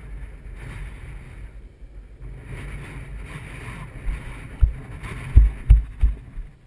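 Longboard rolling downhill on asphalt: steady rumble of the wheels on the road mixed with wind buffeting a GoPro's microphone. A few sharp low thumps come in quick succession in the second half.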